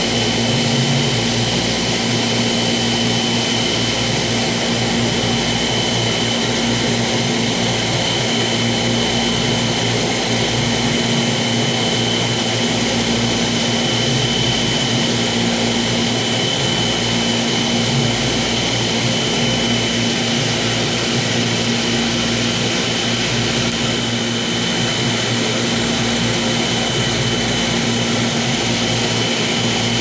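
Steady mechanical hum and rushing noise of reef aquarium equipment (pumps and fans), with a thin high whine over a low drone.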